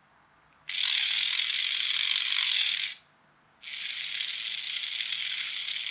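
Small toy-car drive motor and its plastic reduction gears whirring in two spells of two to three seconds with a short pause between, the second a little quieter; the motor is being driven by touching a wire to the circuit board.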